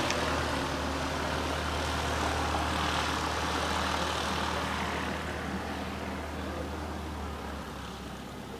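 A light aircraft's piston engine and propeller running at a distance, a steady drone that slowly fades as the plane moves away; its low hum drops out near the end.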